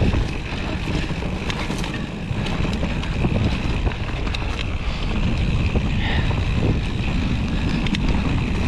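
Wind rushing over an action camera's microphone during a fast mountain-bike descent on rough singletrack, with the bike rattling over the ground. Short sharp clicks and knocks are scattered throughout.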